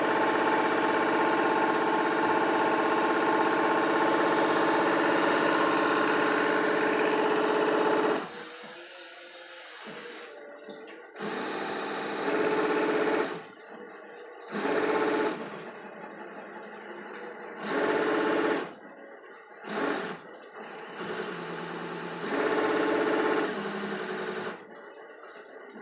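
Knitwear linking machine running at its top setting of about 1000 rpm: a steady whirring hum with several held tones for the first eight seconds, then stopping and starting in short runs of about a second each.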